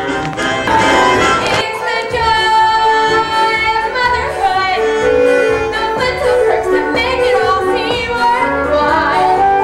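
Music: a musical-theatre song with a woman's voice singing held, wavering notes over an instrumental accompaniment with a steady bass line.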